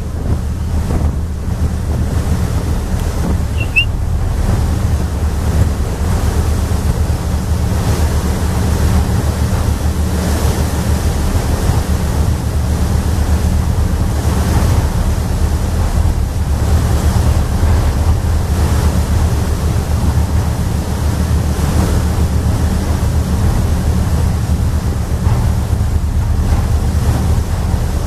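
Steady wind on the microphone and water rushing past the hull of a moving boat, over a constant low engine drone.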